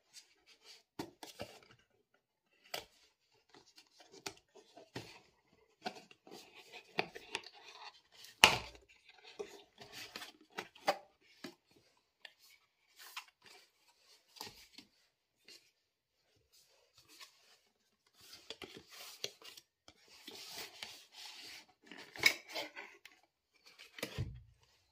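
Paperboard packaging handled by hands: card flaps folded back and an inner box slid out, giving irregular taps, scrapes and rustles of card with short quiet gaps. The loudest knock comes about a third of the way in.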